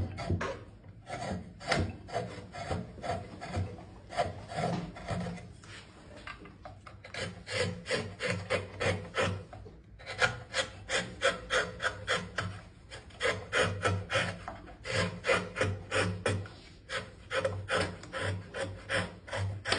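A hand tool rasping across wood in runs of quick back-and-forth strokes, about three or four a second, with short pauses between runs.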